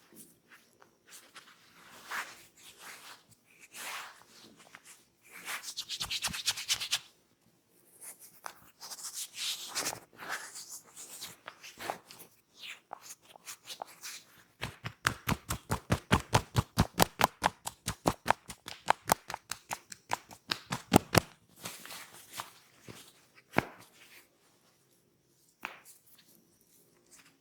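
Hands massaging a head: scattered rubbing, rustling and pats, then a run of fast, even tapping strokes at about six a second lasting some six seconds in the second half.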